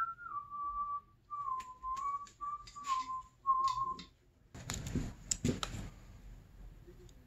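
A person whistling a slow tune, one clear note at a time stepping lower, which stops about four seconds in. About a second later comes a short burst of rustling and clicks.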